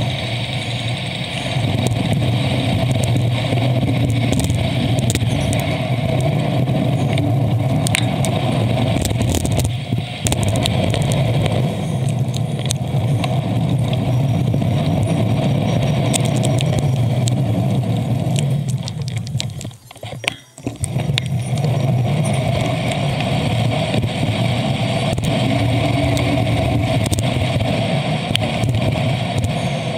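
Steady traffic and road noise heard from a moving bicycle, with motor vehicle engines running nearby. The noise drops away for a moment about twenty seconds in, then returns.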